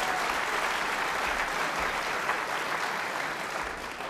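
Audience applauding a shot, the clapping dying away near the end.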